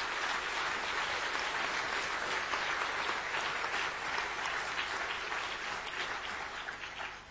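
Audience applauding: a steady spell of clapping from a large crowd that dies away near the end.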